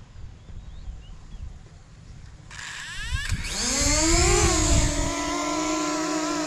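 DJI Mini 2 drone's motors and propellers spinning up about two and a half seconds in, the whine rising in pitch with a low rumble as it lifts off from the hand, then settling into a steady hovering buzz.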